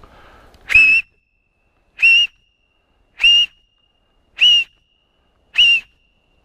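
Five short whistle blasts at one high pitch, evenly spaced about a second apart, each starting with a slight upward bend.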